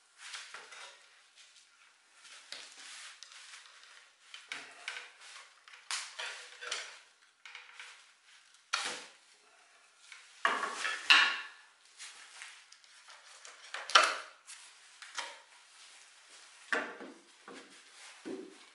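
1930s wooden chair being pulled apart by hand: its loose joints knock and rattle and the wooden frame parts clatter against each other, in an irregular string of clacks with the loudest knocks around the middle. Near the end, a few duller knocks as the separated back frame is rocked to test how its joints move.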